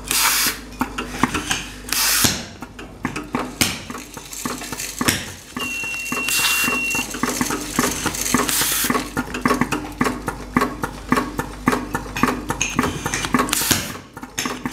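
Automatic screw-feeding machine with a handheld electric screwdriver at work: short hissing blasts of compressed air blowing screws down the feed tube, and the clicking and clatter of screws being driven into a plastic LED bulb housing, over a steady hum. A high beep sounds for about a second and a half, about six seconds in.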